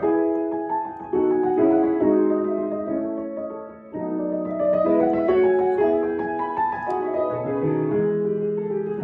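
Solo piano playing a slow piece of chords under a melody, the notes ringing and fading. New chords are struck about a second in and again about four seconds in.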